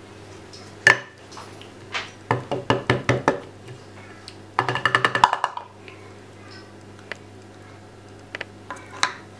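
An upturned plastic cup of wet cat food being tapped and knocked on a plate to free the food: one knock, then a quick run of about ten light taps, and a short squeaky rub about halfway through as the cup is worked loose. A couple of light taps come near the end.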